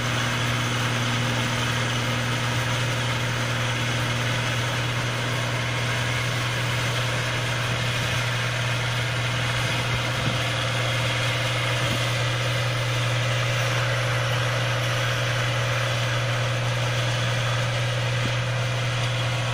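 Heavy diesel engine running at a steady speed: a constant low hum with an even mechanical whir above it that holds level throughout.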